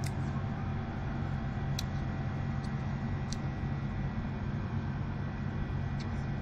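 Steady low rumble of background noise, with a few faint short clicks scattered through it.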